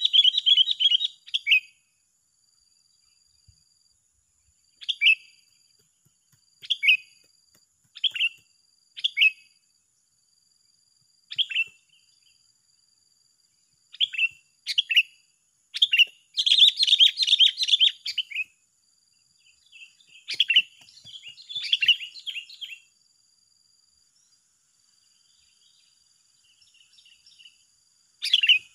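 Sooty-headed bulbuls (kutilang) calling: short bright chirped phrases every second or two, breaking into longer chattering runs a little past halfway, then a pause before a loud call again near the end.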